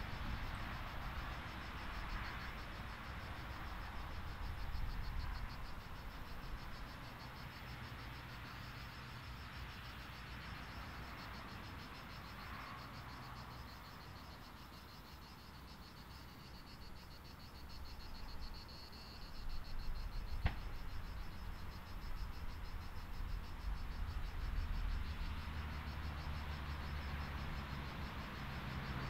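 Insects chirring steadily in fast, even pulses, with the low, distant rumble of a jet airliner landing, which swells about two-thirds of the way through. One sharp click about 20 seconds in.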